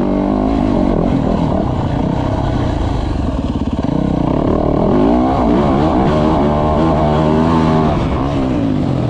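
Dirt bike engine revving up and down with the throttle while riding, its pitch rising and falling several times.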